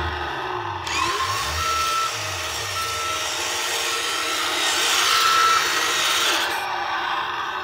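Road Rippers Vault Buster toy monster truck running across carpet with a whirring drive. A short high squeak comes about once a second, four times, the squeaking the owner says means it needs oil.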